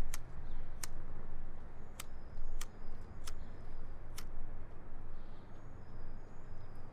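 A lighter being struck again and again, about six sharp clicks half a second to a second apart, over a low steady outdoor rumble.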